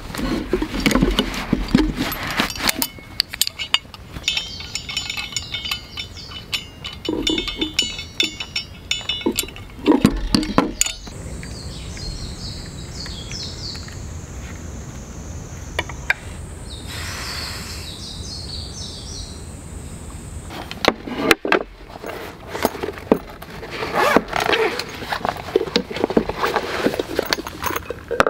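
Camp gear handled on a wooden table: rustling of a cloth pouch as a small gas stove is taken out, and scattered clinks and knocks of metal parts, most of them near the start and again over the last several seconds. In between, high, evenly repeating chirps.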